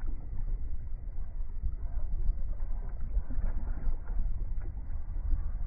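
Muffled, steady rumble of wind on the camera microphone, with faint splashing of a large red drum thrashing at the surface beside the boat.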